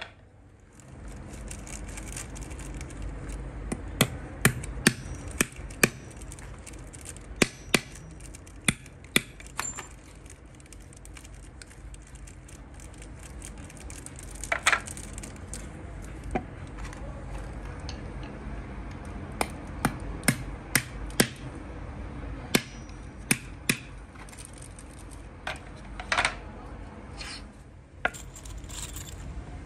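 Irregular sharp taps and clinks of a hammer and small metal fittings during handwork on wooden loom shuttles: some quick runs of strikes, other knocks single and spread apart, over a steady low hum.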